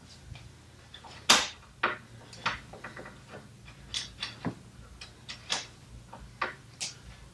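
Irregular clicks and knocks from a small hand tool turning the bolt that holds a crib's side panel to its frame, metal tapping against the bolt and the crib frame as the joint is tightened; the loudest knock comes about a second in.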